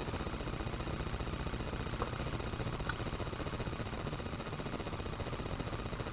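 A steady low hum with hiss, with two faint small clicks about two and three seconds in.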